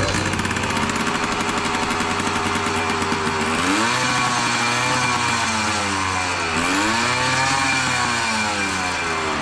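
Dirt bike engine running, revved up and back down twice by the throttle.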